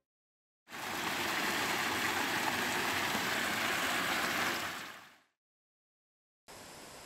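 Water splashing from the jets of a small ornamental fountain: a steady rushing that fades in just under a second in and fades out about two seconds before the end, followed near the end by a faint hiss.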